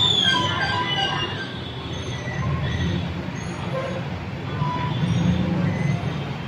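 Steady low rumble of vehicle noise, with a high squeal gliding downward in the first second and a few faint short tones.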